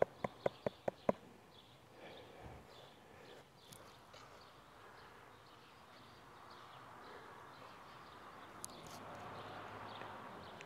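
Soapy water swishing faintly in a plastic gold pan as black-sand concentrate is panned by hand, growing a little louder near the end. In the first second, a quick run of five sharp taps about a fifth of a second apart.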